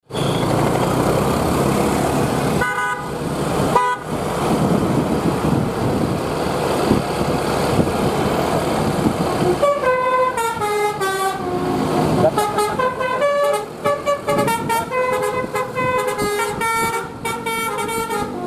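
Loud bus and road noise with two short horn blasts about three and four seconds in; from about ten seconds in, the bus's basuri telolet horn, a multi-tone musical horn, plays a tune of quick stepping notes.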